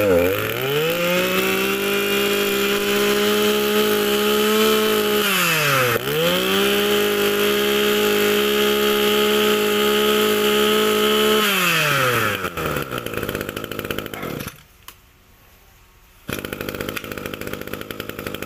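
Small two-stroke brush cutter engine revved up to a steady high speed and held at full throttle for about five seconds, dropped back briefly, then revved and held again before the throttle is let off and it winds down.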